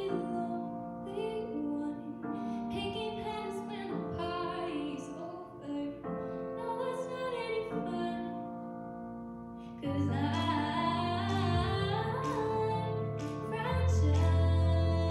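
A young female solo voice singing a contemporary pop ballad at a microphone over a recorded-sounding instrumental accompaniment of held chords. After a short pause in the voice, the accompaniment grows louder and fuller with a bass line coming in about ten seconds in.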